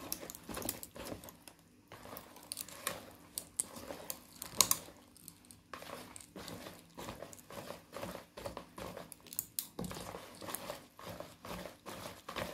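Wire hand whisk beating thick martabak manis batter in a bowl: quick, irregular wet stirring strokes with clicks of the wires, one louder click about four and a half seconds in. The batter is being worked to the right consistency after a little water was added.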